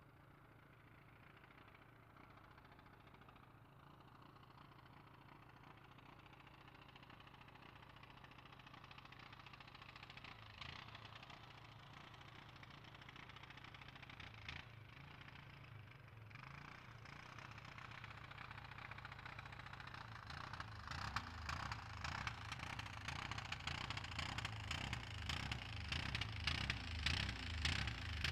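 Four-stroke utility ATV engine, faint at first and growing steadily louder. From about twenty seconds in it turns louder and choppier, with uneven pulses.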